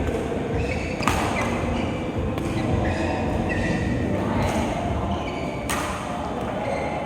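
Billiard balls clicking sharply against each other and the cue a few times, over the steady background murmur of a busy hall.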